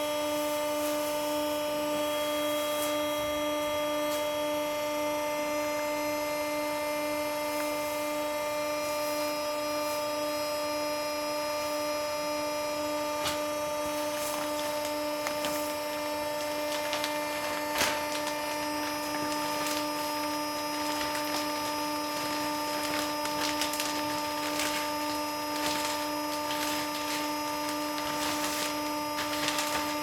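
Steady electric hum of a straw pet pack baler's electric motor running, one clear tone with evenly spaced overtones. From about halfway on, crackling and rustling of straw and a plastic bag join in, with one louder knock about 18 seconds in.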